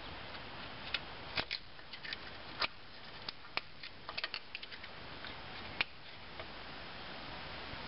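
Irregular light metal clicks and taps of a screwdriver working a cotter pin in a castellated ball-joint nut, bending its legs to splay it, bunched from about a second in to about six seconds in.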